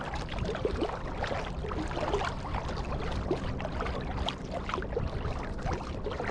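Water splashing, dripping and trickling around a kayak being paddled, in many small scattered splashes over a steady low rush.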